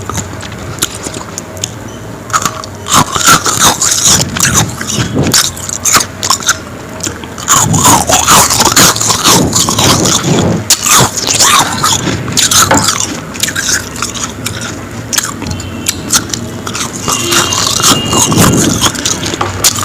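A person biting and chewing powdery frost ice, with many irregular crunches and crackles.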